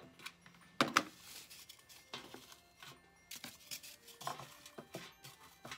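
Small objects being handled inside a galvanized metal planter tub, knocking against the metal: scattered clicks and clanks with some light rustling.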